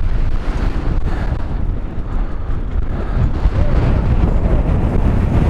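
Single-cylinder two-stroke engine of a 2017 KTM 300 EXC enduro motorcycle running while riding, almost buried under heavy wind buffeting on the camera microphone.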